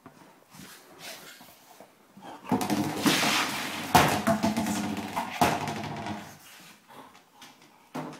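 A large inflatable dog play ball being pushed by a dog across a wooden floor and against a door. It gives a loud rubbing noise with a steady pitch for about four seconds, from about two and a half seconds in, with two sharp knocks.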